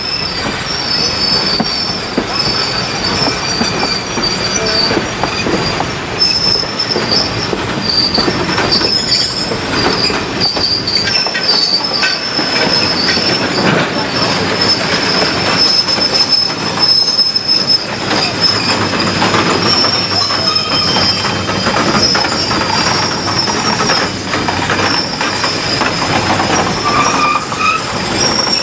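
Wheels of slow-moving passenger cars squealing against the rails on a curve, a steady high squeal that wavers in pitch and strength, over the rolling rumble of the cars.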